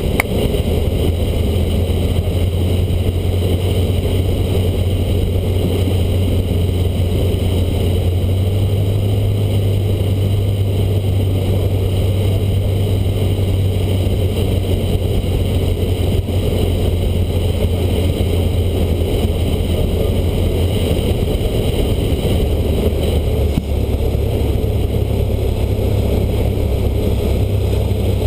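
Cessna 152's four-cylinder Lycoming engine and propeller droning steadily, heard inside the cockpit on the approach to landing. The engine note shifts slightly a couple of times as power is adjusted.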